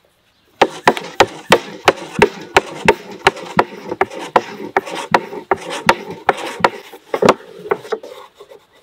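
Long, thin wooden rolling pin rolling dough out on a round wooden board: evenly spaced wooden knocks, about three a second, with rubbing between them, starting about half a second in.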